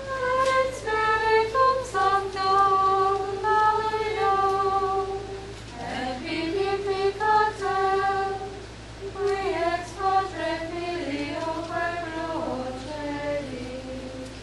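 Church singing: voices singing a slow melody in unison without accompaniment, holding long notes and pausing briefly between phrases.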